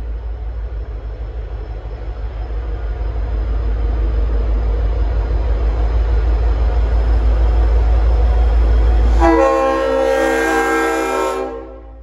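V/Line N class diesel locomotive drawing nearer with a low rumble that grows steadily louder. About nine seconds in, its Leslie RS5T five-chime air horn sounds one chord for about two seconds, then cuts off sharply.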